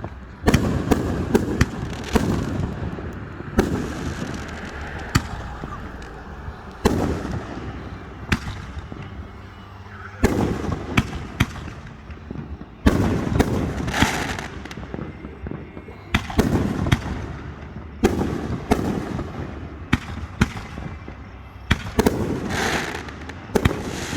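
Aerial fireworks display: a string of sharp shell bursts about a second or two apart, with crackling and rumbling between them.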